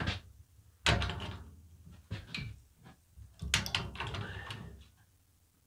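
Manual shrinker stretcher with stretching jaws clamping and stretching a 1.4 mm sheet-metal flange: two sharp metallic clunks about two and a half seconds apart, each fading over about a second, with a few lighter clicks between.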